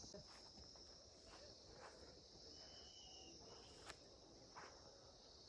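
Faint steady insect chorus, with a brief high whistle about three seconds in and a few soft clicks.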